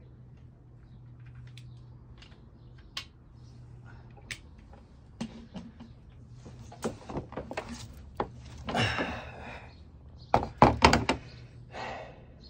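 Handling noise in a home workshop: scattered light clicks and taps, then a rustle and a cluster of loud thunks about ten seconds in.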